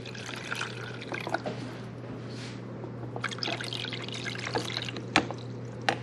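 Water pouring from a glass coffee carafe into the water reservoir of a Black+Decker 5-cup drip coffee maker, a steady splashing pour, with a couple of sharp clicks near the end.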